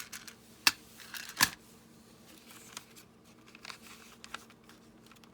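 A clip being fastened onto junk journal pages: two sharp clicks about a second apart near the start, then faint paper rustling and small ticks as the pages are handled.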